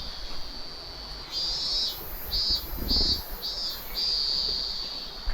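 Insect calling from outside in a high, steady buzz that breaks into pulses about two a second from a little past a second in, then runs steady again near the end. A faint low thud comes about three seconds in.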